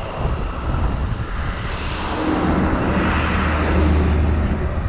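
Wind buffeting the microphone, with a low rumble throughout. A louder rushing swell builds about two seconds in and eases off near the end.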